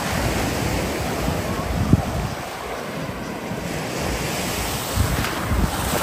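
Ocean surf breaking and washing up on the beach, a steady rushing noise. Wind buffets the microphone in low gusts, the strongest about two seconds in and again near the end.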